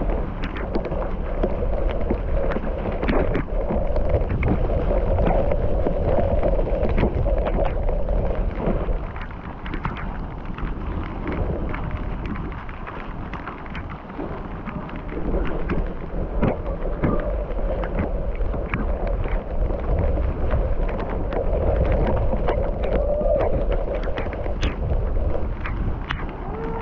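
Mountain bike ride noise picked up by an action camera: wind rushing over the microphone with a constant clatter of rattles and knocks as the bike runs over a rough trail. It eases off for a few seconds in the middle.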